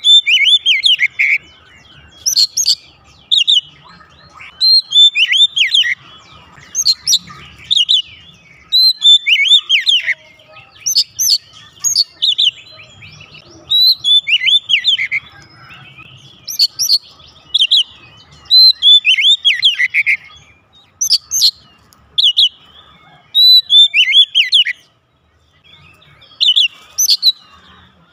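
Male oriental magpie-robin singing loudly in full song: rapid phrases of clear whistles and downward-sliding notes, repeated every second or two with short pauses between them.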